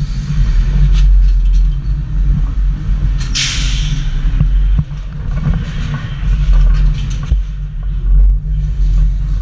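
Wind and ride machinery rumbling on a GoPro riding the gondola of a Huss Top Spin 2 as it swings and flips over. A short loud hiss comes about three and a half seconds in.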